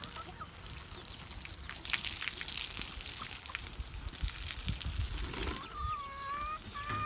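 Garden hose running, its spray splashing onto dirt and grass with a steady hiss. A bird calls a few times near the end.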